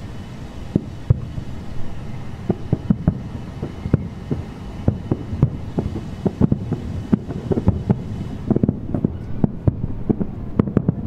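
Fireworks shells bursting in the sky, a rapid, irregular run of booms over a steady low rumble, coming thicker from about two seconds in.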